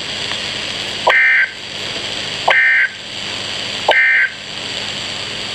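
Emergency Alert System SAME end-of-message data bursts: three short, shrill digital warbles about a second and a half apart, each starting with a click, over a steady weather-radio hiss. They mark the end of the alert message.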